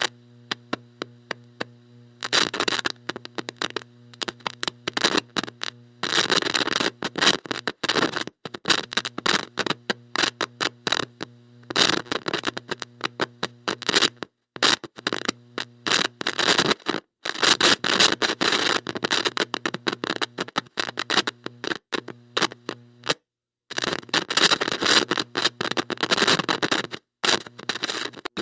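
Heavy electrical static from a bad electronic connection: a steady mains-like buzz under irregular bursts of crackle that cut in and out, with a few brief dropouts to silence.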